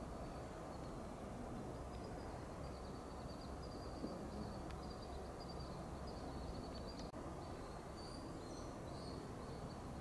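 Faint forest ambience: a steady low background rumble with a thin, high trill running through most of it, and a faint tap about four seconds in.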